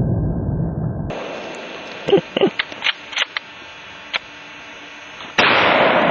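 A rifle shot about five and a half seconds in: a sudden loud crack with a long fading echo. Before it, a loud low rumble cuts off abruptly about a second in, followed by a few short sharp clicks.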